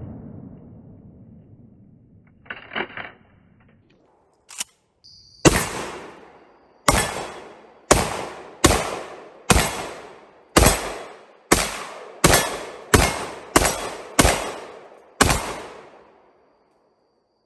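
About a dozen single gunshots fired one at a time at an uneven pace of roughly one a second, each trailing a long echo. Before the string starts there is only the fading echo of an earlier shot and a few faint clicks.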